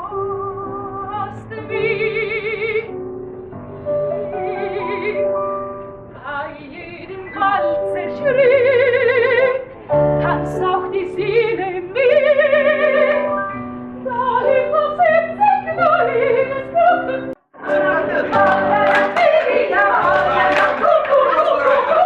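Operatic singing in a high voice with strong vibrato over an instrumental accompaniment, the sung notes held and swelling. About three-quarters of the way through the sound cuts out for an instant and comes back as a denser, busier passage.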